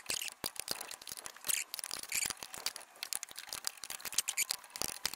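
Irregular sharp clicks and scraping, rustling noises of hands and tools being handled at close range.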